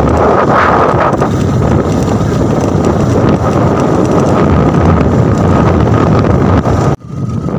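Loud, steady wind buffeting the microphone of a phone held out on a moving two-wheeler, with a faint steady high whine underneath. It cuts off abruptly near the end.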